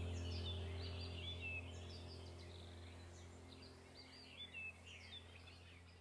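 Small birds chirping and twittering over a low steady hum, the whole slowly fading out.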